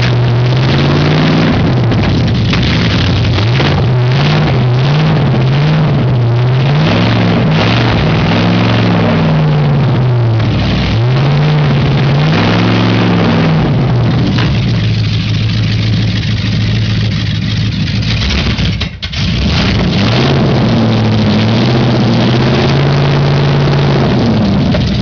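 1978 Aston Martin V8 running loud on open headers with no exhaust pipes or silencers, on its first run in months. The throttle is blipped again and again so the revs rise and fall, then there is a brief dip about three quarters of the way through, and it settles to a steady idle.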